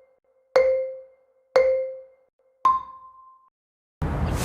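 Countdown sound effect of struck, marimba-like tones: three at one pitch about a second apart, each ringing out briefly, then a higher final tone at a bit over two and a half seconds. A low background hum starts just before the end.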